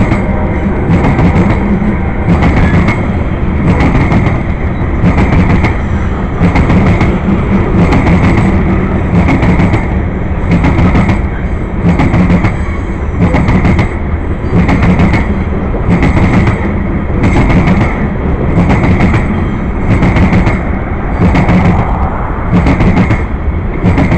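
Grain train's covered hopper cars rolling past, with a steady low rumble and steel wheels clacking over rail joints a little more than once a second.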